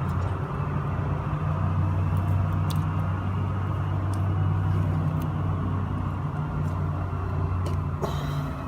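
Steady low mechanical hum, like a running motor, with a few faint clicks over it.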